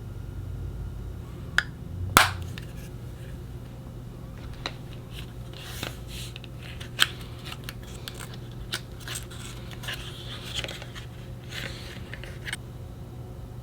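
Hands handling cosmetics packaging: scattered clicks and taps with short stretches of light rustling, the loudest a sharp snap about two seconds in, over a steady low hum.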